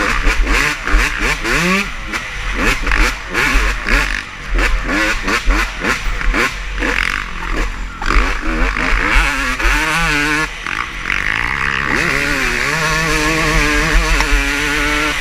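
Motocross bikes racing on the track, engines revving up and down in pitch as riders work the throttle and shift. From about twelve seconds in, a single engine holds a steadier note.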